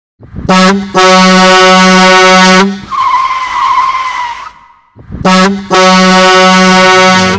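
Loud vehicle horn blasts, a short one then a long held one, twice over, with a brief tyre squeal between the two pairs.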